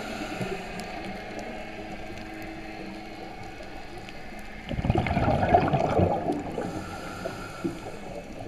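Underwater scuba diver's regulator: one loud burst of exhaled bubbles about five seconds in, over steady underwater background noise.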